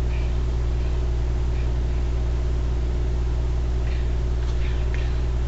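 Steady low electrical hum with a faint higher tone, picked up by the webcam microphone, and a faint rustle of paper being handled around four seconds in.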